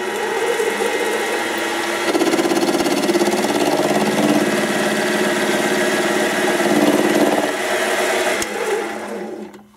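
Small metal lathe running with a roughing end mill in its chuck, milling a metal part fed in from the tool post: a steady machine whir with cutting noise. It grows louder for a stretch from about two to seven and a half seconds in, then dies away near the end.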